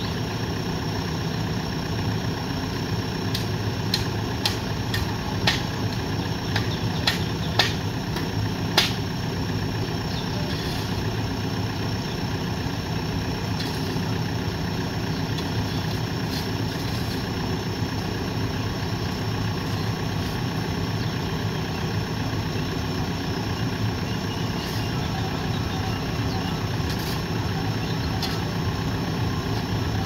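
JCB backhoe loader's diesel engine idling steadily. Sharp knocks and clicks sound over it, several in quick succession in the first nine seconds or so and a few more further on.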